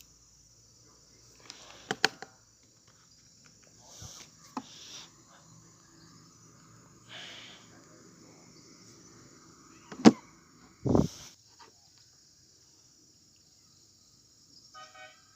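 Scattered sharp clicks and taps, with a few short hissing swishes, a loud click about ten seconds in and a dull thump just after it, over a faint steady hiss.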